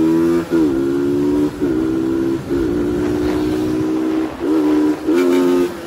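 Vehicle horn honked in about six long, steady blasts with short breaks between them.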